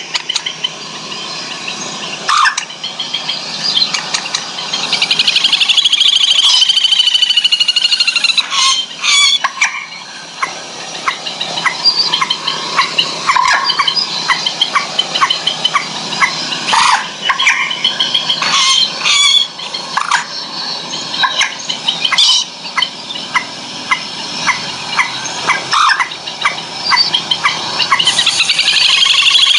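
Recorded bird calls played loudly through a pair of horn-loaded treble drivers during a sound test. The sound is shrill and dense: chirps and whistles, a falling glide a few seconds in, and runs of fast repeated notes in the second half.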